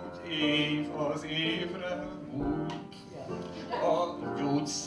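A man singing a song live with instrumental accompaniment.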